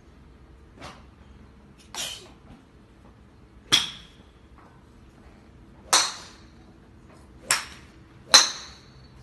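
A run of six short, sharp sneezes, each a quick burst of breath noise with no long lead-in. The first two are softer, and the last four are much louder, the final one loudest.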